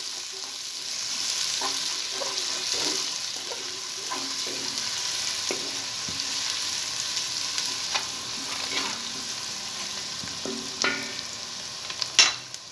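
Sliced onions and green chillies sizzling in hot ghee and oil in a large metal pot, the first frying for a biryani masala. A wooden spatula stirs them and scrapes against the pot, and a sharp knock near the end is the loudest sound.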